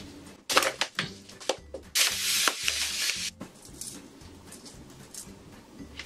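Rustling and crinkling from hands handling kitchen paper and food packaging: a few sharp crinkles about half a second in, then a louder rustle lasting just over a second from about two seconds in. Faint background music with a steady beat plays underneath.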